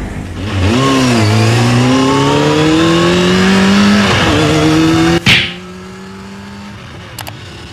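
Motorcycle engine revving up and accelerating, its pitch climbing steadily for a few seconds before easing off and holding. A sharp loud burst of noise comes about five seconds in, and the engine then hums more faintly. A single click comes near the end.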